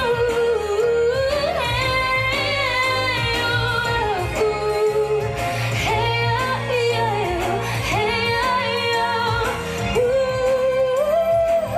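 A woman singing a pop ballad in ornate runs that slide up and down in pitch, ending on a held note with vibrato, over instrumental backing.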